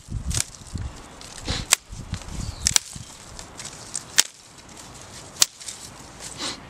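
Dry reeds and twigs snapping as they are broken by hand: about five sharp cracks a second or so apart, with rustling of dry grass and stems in between.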